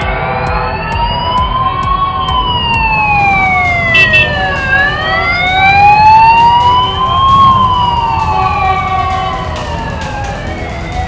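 Several police sirens wailing slowly, each rising and falling over about five seconds and overlapping out of step, over the low rumble of motorcycle engines.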